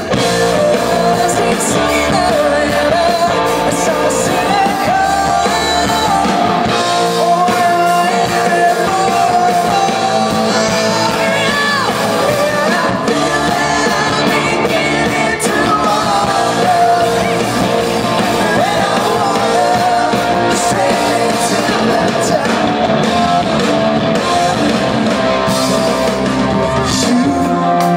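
Live rock band playing loud, with a lead singer over electric guitars, heard from among the audience.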